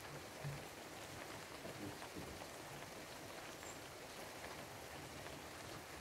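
Steady rain falling outside, an even hiss with scattered individual drops ticking close by.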